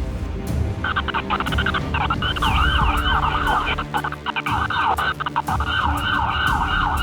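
Emergency vehicle siren in a fast rising-and-falling yelp, about three sweeps a second, starting about a second in.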